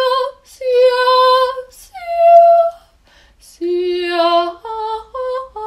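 A woman singing unaccompanied: a few long held notes, then several short ones near the end.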